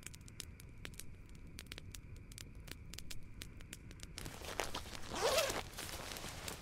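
Campfire crackling with scattered sharp pops, then about four seconds in a tent zipper is pulled open in one long rasping sweep that rises in pitch and is loudest a little after five seconds.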